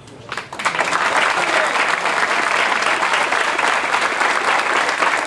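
A crowd applauding. The clapping rises sharply about half a second in, then holds steady and dense.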